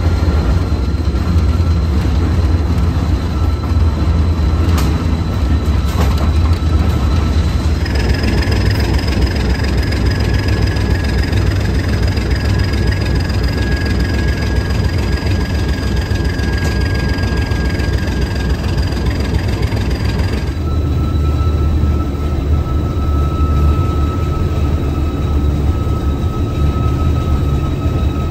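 ALCO RS-1 diesel locomotive engine running under way, a loud steady low rumble with a thin high whine over it. The sound shifts abruptly about 8 s and 20 s in.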